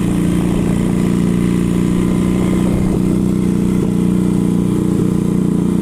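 Motorcycle engine running at a steady, low speed, its pitch holding even.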